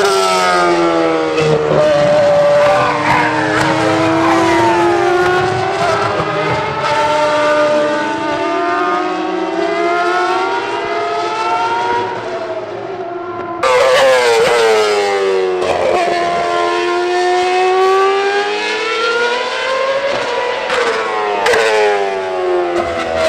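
Ferrari Formula 1 car engines running at high revs, the pitch repeatedly climbing and dropping through gear changes as the cars accelerate, brake and pass by. There is an abrupt jump in the sound a little past halfway through.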